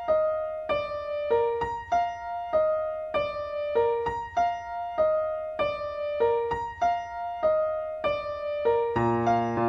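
Background music: a gentle keyboard melody of single notes in a figure that repeats about every second and a quarter, with fuller accompaniment joining about nine seconds in.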